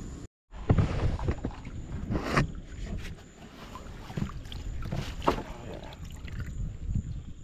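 A plastic kayak being handled among marsh reeds: irregular knocks and scrapes of the paddle and a PVC-framed net against the hull, with water sloshing, over a low wind rumble on the microphone. The sound drops out briefly just after the start.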